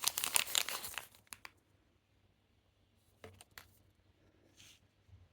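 Packaging crinkling and tearing as it is opened, stopping about a second in; after that only a few light clicks and taps.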